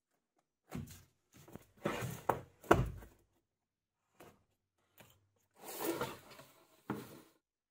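Unpacking noises: plastic wrap crinkling and rustling on a cardboard shipping box, with two sharp knocks of the box, the loudest about three seconds in. After a pause come a couple of small ticks and another rustling burst as a knife slits the packing tape.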